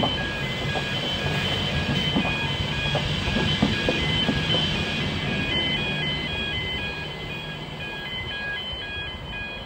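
Express passenger train's coaches running past with a steady rumble and scattered wheel clicks, fading slightly in the second half. A repeating high chiming tune of short notes sounds throughout.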